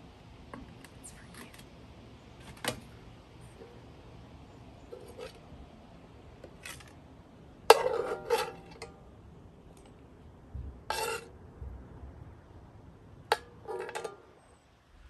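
Metal serving spoon scraping and clinking against a skillet and plates as food is dished out: scattered clinks and scrapes, the loudest cluster about eight seconds in.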